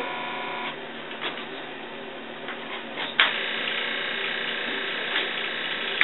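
Cord plugs clicking into jacks on a Western Electric 555 cord switchboard, with one sharp click about three seconds in. Alongside runs a steady buzzing tone that stops under a second in and starts again with that sharp click.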